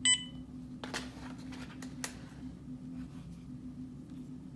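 Cipherlab 9700 handheld barcode scanner giving one short, high beep as an item scans, followed by a few faint clicks of the handheld being handled or its keys pressed, over a low steady hum.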